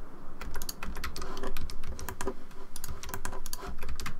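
Computer keyboard keys and mouse buttons clicking in quick, irregular taps as editing shortcuts are pressed.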